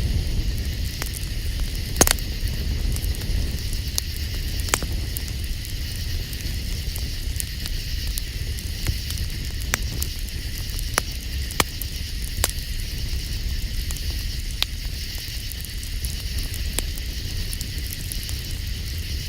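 Campfire crackling, with sharp pops every second or two (the loudest about two seconds in), over a low steady rumble and a steady high-pitched hum.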